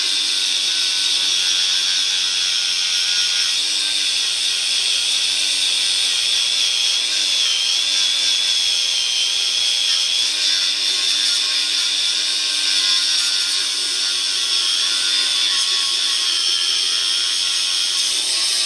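Electric angle grinder with an abrasive disc running steadily, grinding down a weld on the steel frame rail of a 1948 Chevy truck. Its high whine dips slightly in pitch about eight seconds in.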